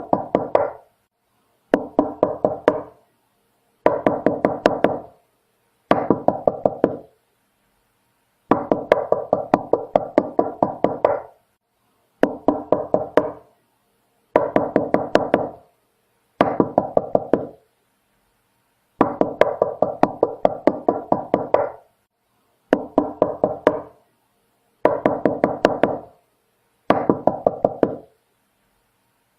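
Knocking on a door in quick runs of several rapid knocks, each run lasting one to three seconds. About a dozen runs follow one another with short silent pauses between them.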